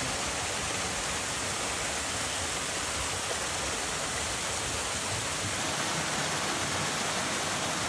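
Small waterfall cascading over rocks into a pool: a steady rush of falling water.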